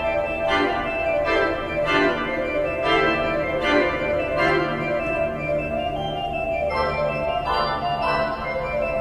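Organ music: sustained chords, with new notes coming in about once a second.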